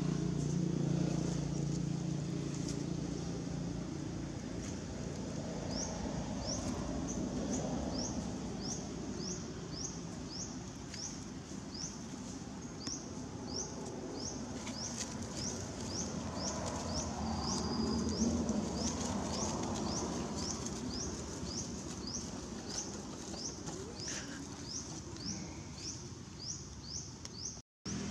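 Outdoor forest ambience: a short high chirp repeats steadily about twice a second, starting several seconds in, over faint rustling in leaf litter.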